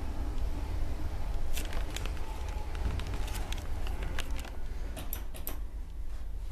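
2000 KONE Stella hydraulic elevator car riding down: a steady low rumble, with a run of light clicks and ticks from about a second and a half in to near the end.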